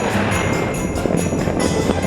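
Background music with jingling bells on a steady beat.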